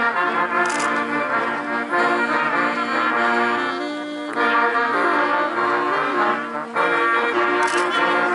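Brass band music: slow, held notes that move from one pitch to the next. There are two short, high crashes, about a second in and near the end.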